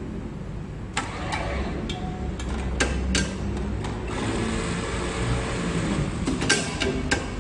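Automatic placket-setting machine running with a steady low hum and a series of sharp clicks and clacks as its pneumatic clamps and folder plates set down on the fabric.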